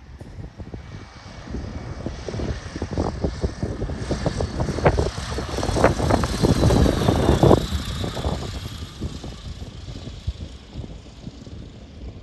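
Propeller-driven aerobatic biplane's engine throttled back on landing approach, growing louder as it passes close and low about six seconds in, with a falling whine as it goes by, then fading as it settles onto the grass strip and rolls away.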